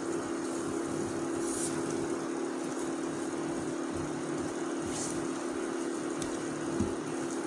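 Induction cooktop humming steadily while a wooden spatula stirs and scrapes a thick besan mixture around a steel pan, with a brief scrape about a second and a half in and again near five seconds; the mixture is being cooked down into a dough.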